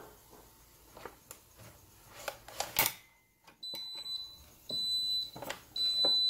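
Waring Pro WWM450PC waffle maker's done signal: three high, steady beeps about a second apart, each lasting about half a second, meaning the waffle is ready. Before them come a few clicks and knocks.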